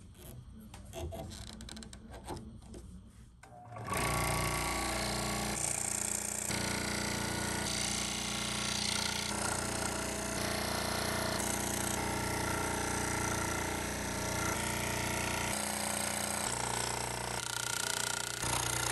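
Light clicks as a blade is clamped into a scroll saw. About four seconds in, the saw starts and runs steadily, its blade stroking up and down as it cuts an inside square opening through a thin wooden board.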